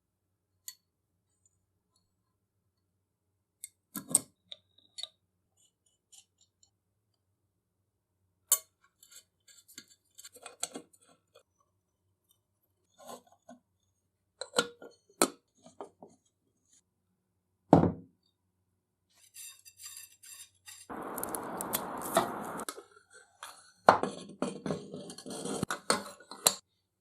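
Metal parts of an antique ox-tongue iron being handled: scattered clinks and knocks, a brief stretch of steady scraping noise about two-thirds of the way in, then a quick run of clattering near the end.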